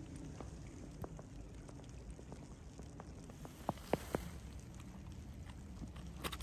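Footsteps crunching on fresh snow, faint and irregular, with a few sharper clicks about four seconds in.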